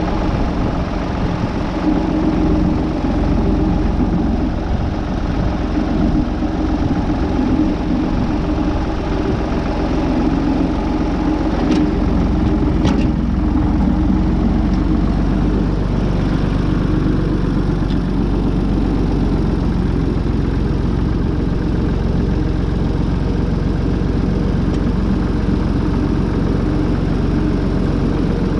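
Tractor engine running steadily under light load, with a couple of faint clicks about halfway through.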